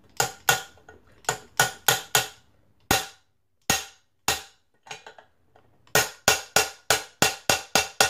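A ratchet head used as a hammer, striking a socket extension to drive a bearing out of a BMX frame's bottom bracket shell: sharp metal-on-metal knocks with a short ring. They come in irregular groups, then quicken to about four a second in the last two seconds.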